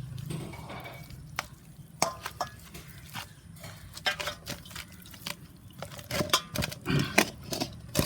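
Hands packing masala paste into a whole raw chicken, with scattered clicks and clinks of a dish and utensils being handled, busier near the end.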